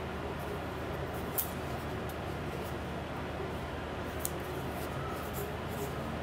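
Small plastic earbud charging case handled in the fingers, giving two light clicks, about a second and a half in and again about four seconds in, over a steady hiss and low hum.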